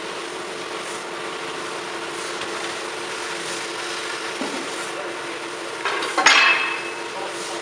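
CORMAK S-280R semi-automatic metal band saw running with a steady hum. About six seconds in, a sharp metallic clank rings briefly.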